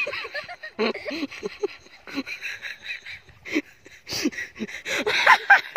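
Short voiced calls and laughter, with water splashing and sloshing as people wade through shallow floodwater handling a bicycle.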